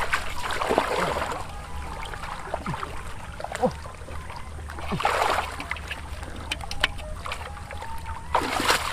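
Shallow muddy water sloshing and splashing as a person wades and feels through it with his hands, with louder splashes near the start, about halfway and at the end, and small clicks in between.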